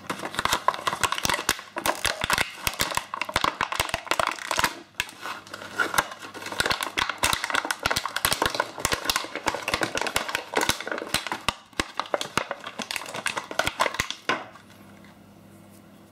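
Clear plastic blister packaging being crinkled, twisted and torn open by hand: a dense run of crackles and snaps that stops near the end.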